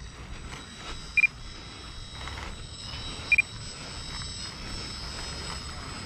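Short, high-pitched electronic beeps: a single beep about a second in and a quick double beep about three seconds in, over a faint steady high whine.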